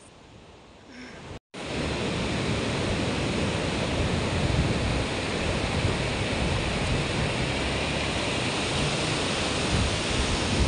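Surf breaking and washing up the beach, mixed with wind buffeting the microphone, as a steady rushing noise. It comes in abruptly about a second and a half in, after a brief quieter stretch.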